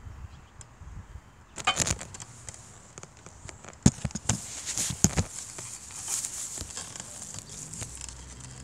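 Handling noise of a hand-held camera being moved about: rubbing and crackling with a run of sharp knocks, the loudest about four seconds in.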